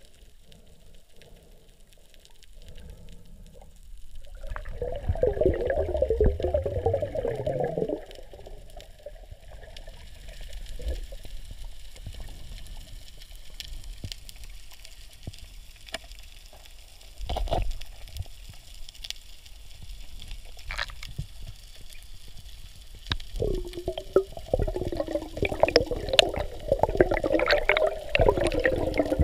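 Water gurgling and bubbling close to the microphone, in two longer wobbly stretches, one near the start and one near the end, with a few sharp knocks in between.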